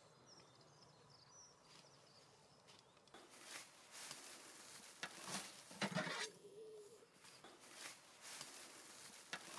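A manure fork scrapes and lifts dry grass clippings: rustling swishes begin about three seconds in. A forkful is tossed into a metal wheelbarrow just before the six-second mark, the loudest moment, with a thump and a brief ring.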